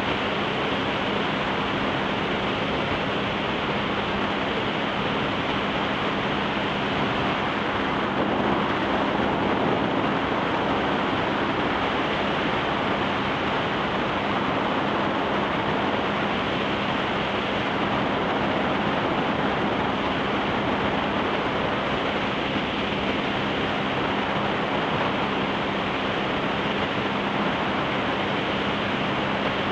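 Steady loud rush of water spray and wind from a barefoot water skier planing at speed behind a towboat, with the boat's engine droning as a steady low hum underneath.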